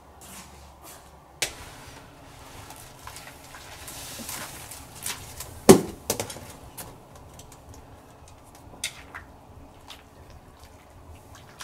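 Knocks and clatters of chopsticks and hands working in a large iron wok of boiling water as hand-cut noodles go in, with one sharp, loud knock about halfway through.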